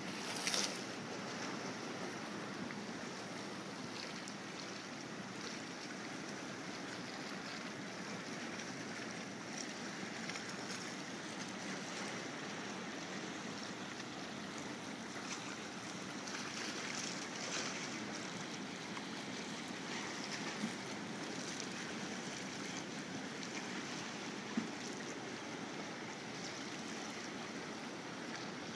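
Steady wash of inlet water, small waves lapping and splashing against the rock jetty, with no voice.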